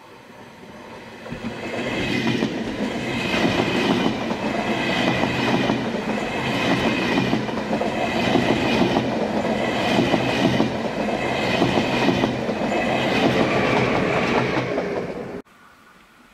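Railjet passenger train in ÖBB livery passing close by at speed. Steady rush of wheels on rail with a low hum and a rhythmic clatter that repeats about every second and a half as the coaches go by. The sound builds over the first second or so and cuts off suddenly near the end.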